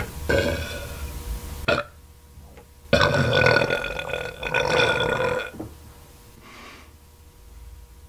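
A woman burping: a long burp lasting about a second and a half, a short sharp one just after, then a second long, loud burp of about two and a half seconds, trailing off quietly.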